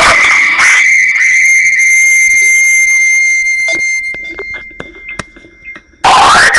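Electronic sound effect played loud through a phone's speaker: a steady, high, whistle-like tone that fades out about four seconds in. A few clicks follow, then a loud, rough, wavering sound starts near the end.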